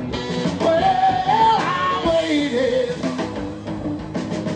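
Rock and roll band playing live, with drums and guitar under a high lead line that steps and slides upward about a second in, between sung lines of the song.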